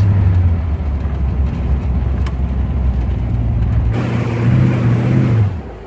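An old car driving, heard from inside the cabin: steady engine and road noise. About four seconds in, a stronger engine note comes in, then drops away near the end. The exhaust manifold bolts have just been tightened to cure an exhaust leak.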